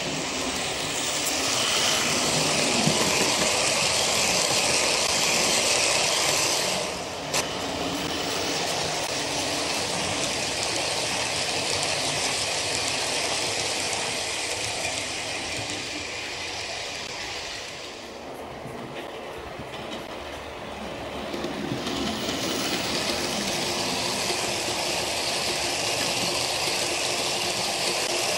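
OO gauge model steam locomotive and a train of coaches running along the track close by, a steady rolling rattle of wheels on rail. There is one sharp click about seven seconds in, and the sound drops away about eighteen seconds in, then swells again a few seconds later as the train comes close once more.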